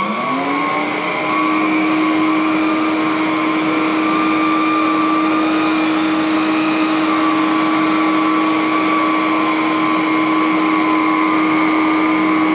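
Electrolux Renaissance canister vacuum cleaner switched on, its motor whine rising as it spins up over the first second or so and then running steady and loud. It is vacuuming shredded paper from carpet through its electric hose.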